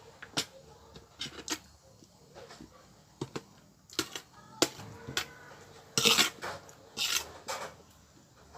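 Eating sounds at a meal of chicken feet: irregular sharp clicks and scrapes of dishes and utensils, with two louder, longer noisy bursts about six and seven seconds in.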